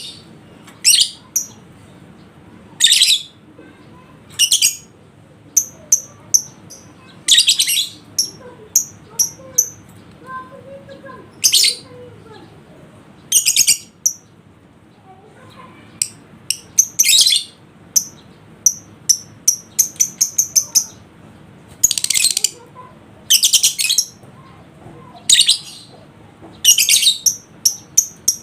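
Lovebirds calling with loud, shrill chirps every second or two. Rapid runs of short, high chirps come about 20 seconds in and again near the end.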